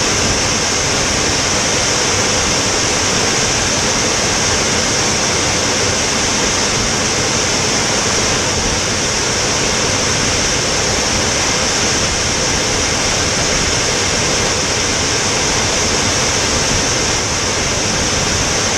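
Steady rush of airflow and engine noise on a camera riding on the MAGMA unmanned aircraft's wing in flight: an even, unbroken roar with a strong high hiss.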